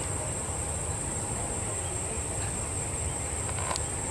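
Insects droning with a steady, unbroken high-pitched tone. Under it runs a low steady rumble from a taxiing jet airliner's engines.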